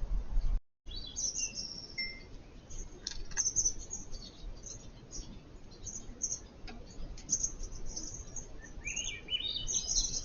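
Wild birds chirping and calling: many short, high chirps throughout, with a quick run of rising notes near the end. A brief dropout comes under a second in.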